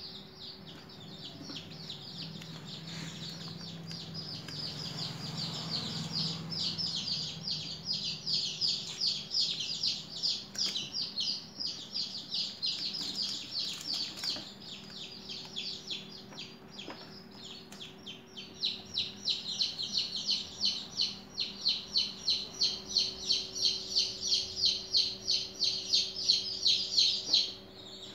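Birds chirping: rapid, high, overlapping chirps that pulse about three times a second and grow louder about two-thirds of the way in, over a faint steady hum.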